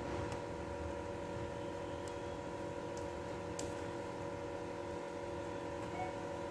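Silicone spatula stirring thick cheese cream in a saucepan on the stove, with a few faint clicks against the pan, over a steady electrical hum.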